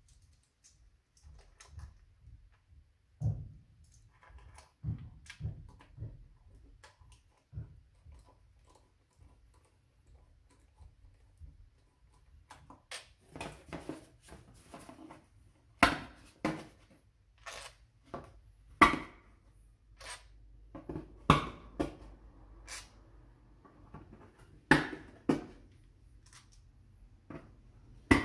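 Hand work with screws and a cardboard sheet: faint low knocks at first, then from about halfway a string of sharp taps and clicks as the engine cover's screws are pushed into the cardboard and the sheet is handled.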